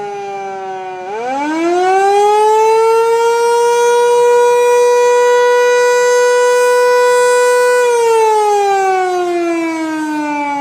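Fire station siren sounding its weekly test. Its pitch sags, then winds back up about a second in to a steady, loud wail held for several seconds, and starts falling again about eight seconds in.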